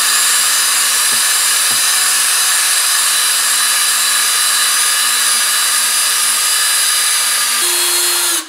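Electric drill spinning a 3000-grit Trizact pad against a wet plastic tail light lens: a loud, steady whine over a rushing hiss. The pitch steps up shortly before the drill stops near the end.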